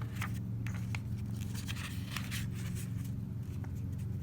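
Light rustling and crinkling of paper as a page of a picture book is handled and turned, over a steady low hum.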